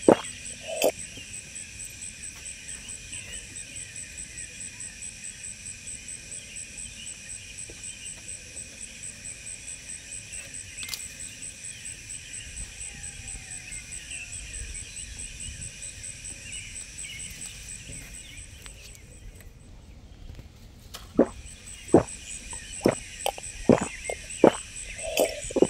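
Steady, high insect chorus with a fast pulsing buzz on top. From about three-quarters of the way in come a run of sharp, loud clicks and knocks.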